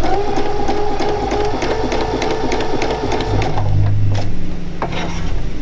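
Electric sewing machine doing free-motion straight stitching through water-soluble fabric in an embroidery hoop. The motor runs at a steady speed with the fast chatter of the needle, then drops to a lower, slower hum about three and a half seconds in.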